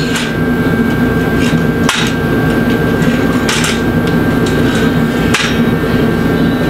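A few sharp knocks, about one every one and a half to two seconds, over a loud steady hum.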